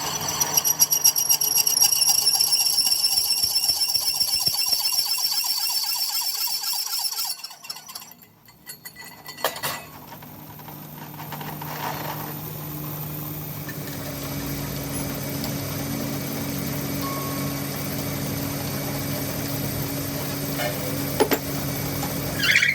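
A machine tool working metal, with a loud, high, fluttering squeal, stops about seven seconds in. A steadier, quieter low hum of a running motor follows.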